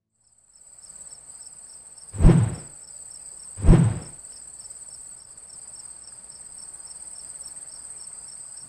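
Crickets chirping in a steady high-pitched trill through a night ambience, with two heavy thuds about a second and a half apart, the first about two seconds in.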